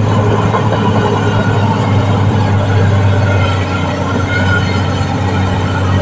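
Caterpillar D6R XL crawler bulldozer running steadily under way: a low diesel engine drone over the rough clatter of its steel tracks, without letting up.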